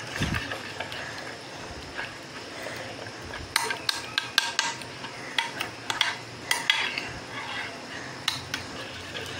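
Metal spoon stirring a thick yogurt-and-tandoori-masala marinade in a glass baking dish, with a soft scraping and repeated clinks of the spoon against the glass that grow frequent from about three and a half seconds in.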